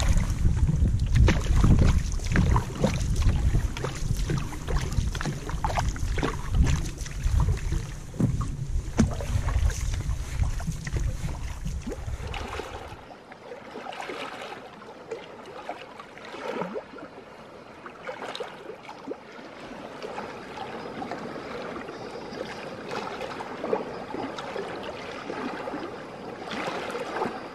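Wind rumbling on the microphone and choppy waves slapping and splashing against a canoe's hull as it moves across the lake. About halfway through the wind rumble cuts off suddenly, leaving quieter water lapping.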